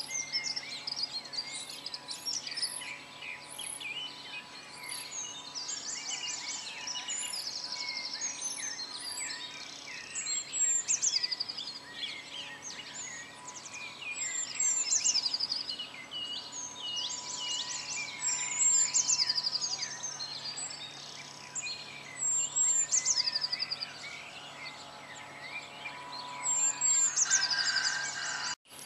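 Dense birdsong: many overlapping chirps and rapid trills, swelling louder several times, over a faint steady hum. The sound drops out for an instant near the end.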